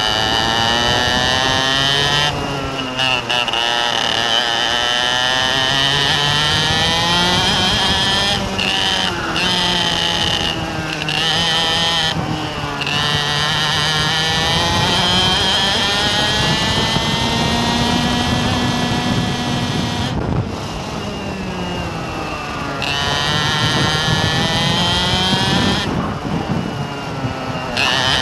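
A vehicle's engine running under way, its revs rising and falling in long sweeps. A high steady whine sits on top and cuts out briefly several times.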